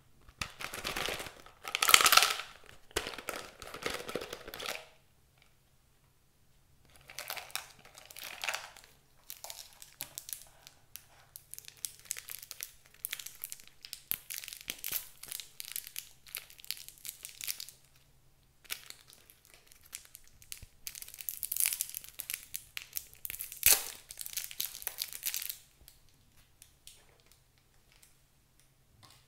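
Thin plastic wrappers crinkling and tearing as small pieces of clay are unwrapped by hand, in three spells with short pauses between them, with a single sharp click about three quarters of the way through.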